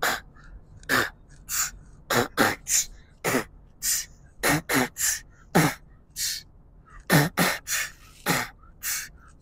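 Beatboxing: a man making a mouth-made beat into his fist, low thumps alternating with sharp hissing hits at about two to three a second.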